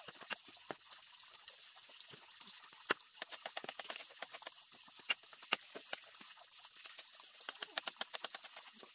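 A long knife chopping fresh bamboo shoots and husks being stripped off by hand: irregular sharp knocks and crackles, several a second, with a few louder chops about 3 and 5.5 seconds in.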